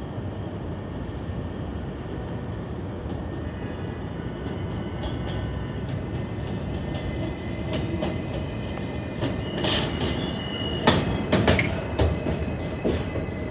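New York City subway train running on elevated track with a steady rumble. In the second half its wheels clack loudly several times over rail joints and switches, with a brief high squeal.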